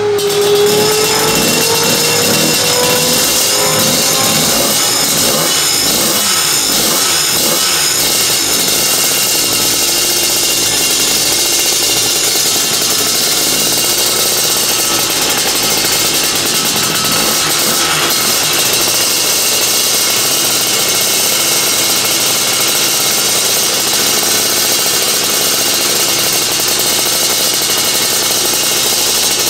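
Division 1 superkart's 250cc two-stroke twin engine running steadily on a dyno while its new pistons are run in. The engine note rises over the first few seconds, then holds steady.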